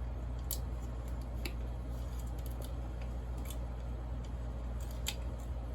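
About four light, sharp clicks at uneven intervals over a steady low hum.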